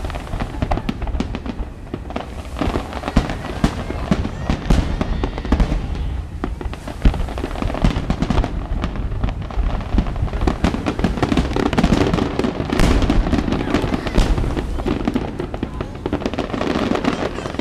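Aerial firework shells bursting over the sea in a dense barrage of bangs and crackling.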